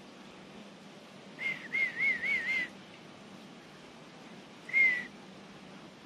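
Human whistling: a clear warbling whistle that wavers up and down about four times, then a single short whistle that falls slightly at its end.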